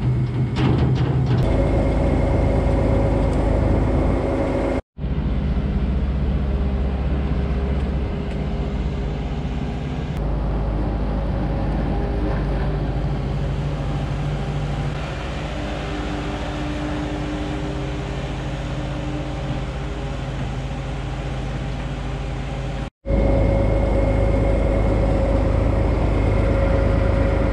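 Diesel machinery running steadily: a tractor driving a Patz vertical TMR mixer, its twin screws turning as hay is dumped in, with a Kubota skid steer loader's engine running alongside. The sound breaks off sharply twice, about five seconds in and again about four seconds before the end.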